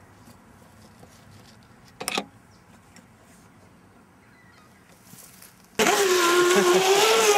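Faint background quiet with a single knock about two seconds in; then, near the end, an electric radio-controlled race boat cuts in suddenly, running fast on the water with a steady high motor whine over a hiss.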